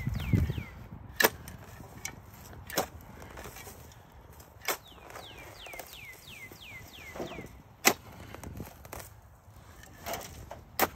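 Six sharp knocks at irregular gaps of one to three seconds, with a songbird in between singing runs of quick, repeated whistles that each fall in pitch.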